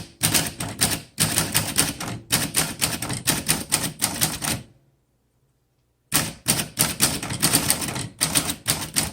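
1940 Corona Standard flat-top manual typewriter being typed on: rapid keystrokes with the type bars striking, a pause of about a second and a half near the middle, then typing resumes.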